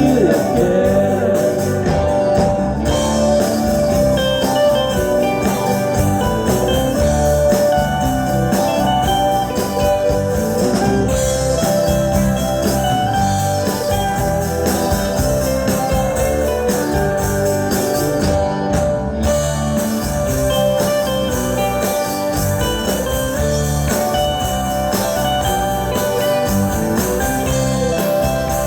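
Live rock band playing, with guitar over a steady drum beat.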